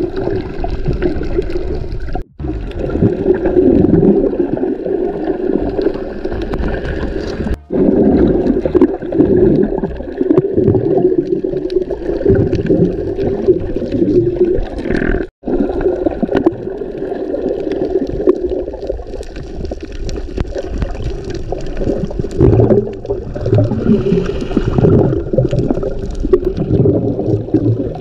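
Muffled underwater sound of sea water sloshing and bubbling around a camera held just below the surface by a snorkeler. The sound has three short gaps, at about two, seven and a half and fifteen seconds in.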